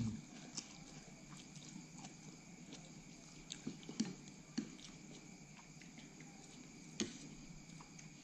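Quiet eating sounds: noodles slurped and chewed, with a few light clicks of chopsticks against ceramic bowls, over a faint steady hum.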